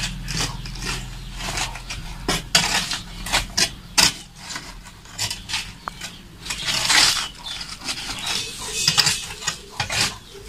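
Metal rod poking and raking glowing charcoal around a steel cooking pot in a clay tannoor pit: a run of irregular sharp clinks, knocks and scrapes as the coals are shifted.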